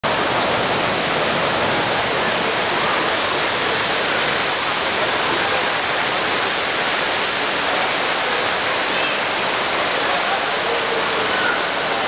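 Tall waterfall pouring down a cliff onto rocks: a loud, steady rush of falling water.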